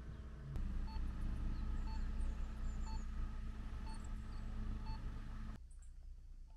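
A short electronic beep repeating about once a second, five times, over a steady low mechanical hum. Both stop suddenly near the end.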